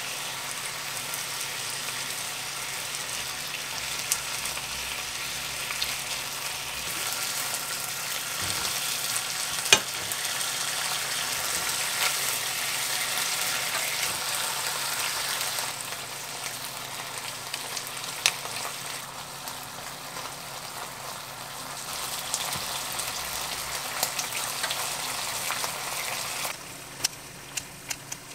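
Eel fillets sizzling in a frying pan with sauce poured over them, a steady hiss of frying. Metal tongs click against the pan now and then, loudest about ten seconds in, and the sizzle dies down shortly before the end.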